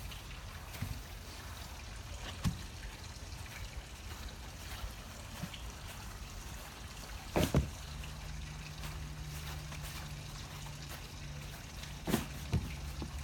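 A few sharp knocks and clunks, two close together about seven and a half seconds in and two more near the end, over a steady hiss; a low hum comes in about eight seconds in.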